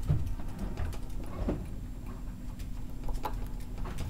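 Soft handling noise from fingers wrapping fly-tying thread around a treble hook's shank: scattered faint ticks and small knocks over a steady low hum.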